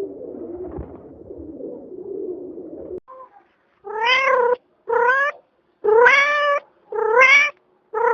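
A cat meowing repeatedly: five short calls about once a second, each rising in pitch, starting about four seconds in. Before them a low wavering sound cuts off suddenly about three seconds in.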